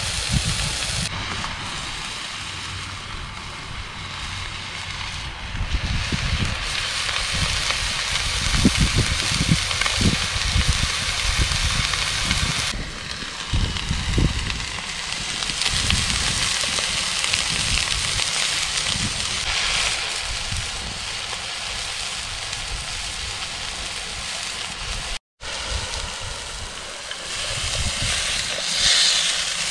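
Fillet steak sizzling in a hot frying pan, a steady hiss with wind rumbling on the microphone underneath. The sizzle flares louder near the end as the steak is turned with a spatula.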